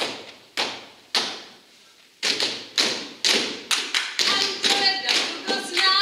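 Three loud percussive strikes about half a second apart, a pause of a second, then a fast run of strikes falling into a rhythm. Voices join in over the beat near the end.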